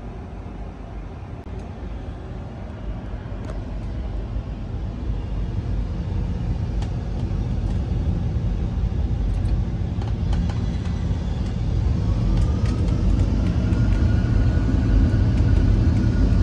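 Boeing 747-8 engines spooling up to takeoff thrust, as reproduced by a flight simulator's sound system. A low rumble grows steadily louder; about three-quarters of the way through, a whine rises and levels off into a steady tone. A few light clicks are scattered through it.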